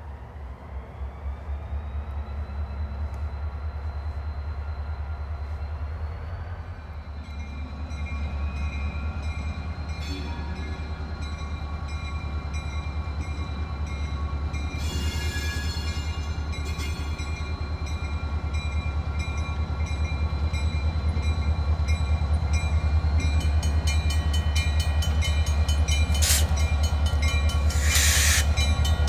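Diesel locomotive engine running and powering up with a deep, pulsing rumble, a whine rising in pitch over the first few seconds, and the sound slowly growing louder. Short bursts of hiss come about halfway and near the end. A grade-crossing bell sets up a regular ringing in the last few seconds.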